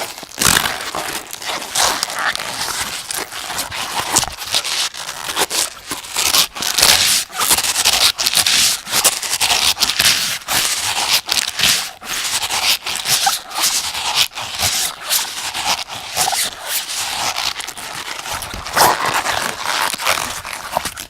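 Rubber hot water bottle being handled to make gross noises: a dense, noisy run of sounds that never lets up, dotted with many sharp clicks.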